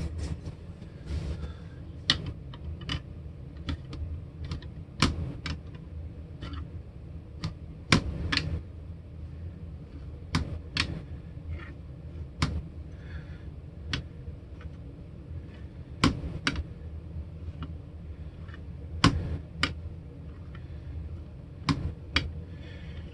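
Metal fret rocker set down and moved across the frets of a guitar neck, checking that the frets are level: a scattered, irregular series of sharp light metal clicks, about one a second. A steady low hum runs underneath.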